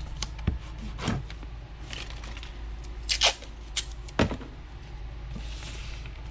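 Hand-handling noises from a cut piece of ABS plastic sheet: scattered knocks and clicks. The sharpest pair comes a little past the middle, and a brief scrape follows near the end.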